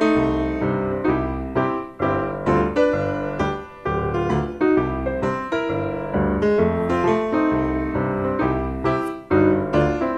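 Background piano music: a steady flow of struck notes and chords, each fading before the next.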